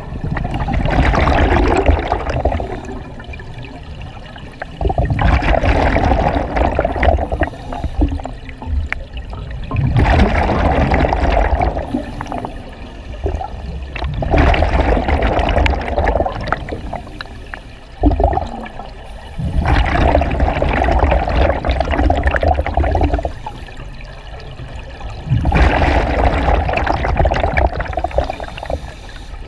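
Scuba diver's regulator exhausting underwater: a burst of gurgling bubbles with each exhalation, about every four to five seconds, with quieter pauses between breaths.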